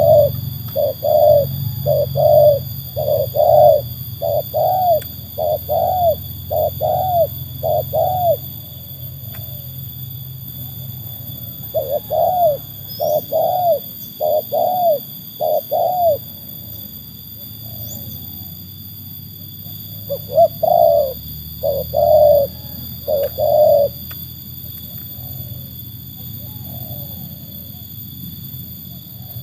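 Spotted dove (tekukur) cooing in runs of rapid, evenly spaced coos: a long run of about ten notes, then two shorter runs after pauses.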